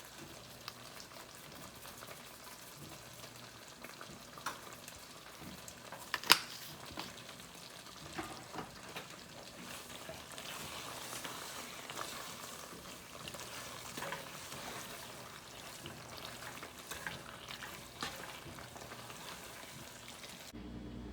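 Creamy Alfredo sauce sizzling and bubbling in a pan while it is stirred, with scattered clicks of a utensil against the pan, the loudest about six seconds in.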